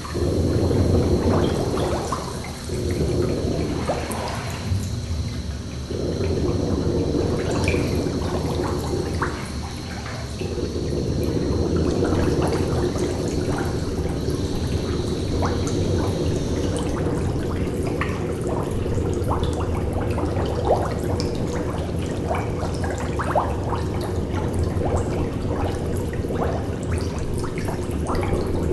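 Steady running, trickling water with scattered small drips. A faint, thin high tone sounds over it and stops about two-thirds of the way through.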